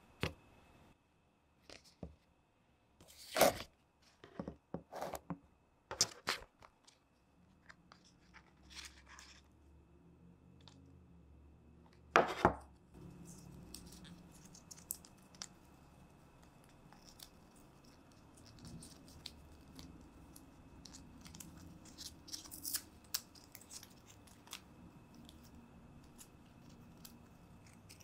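Paper packaging handled close to the microphone: crisp rustles, crinkles and short tearing sounds as the paper wrap is worked off a coiled USB-C charging cable. Two of the tears or snaps are louder than the rest, about three and twelve seconds in.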